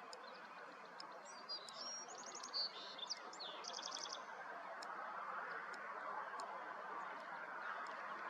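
Bald eagle calling: a high-pitched chattering series of rapid piping notes from about one second in to about three and a half seconds in, over a steady background hiss.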